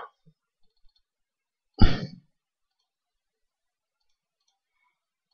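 One short vocal burst from a person, about two seconds in, with near silence on either side.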